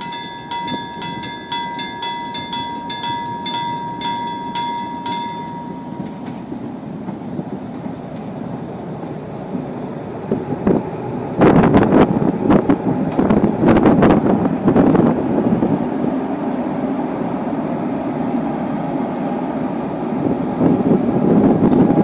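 A Green Cargo four-axle electric locomotive running light past the camera. A steady rumble of motors and wheels becomes loud about halfway through, with sharp clacks as the wheels run over rail joints and points. At the start a level-crossing bell rings rapidly, stopping about six seconds in.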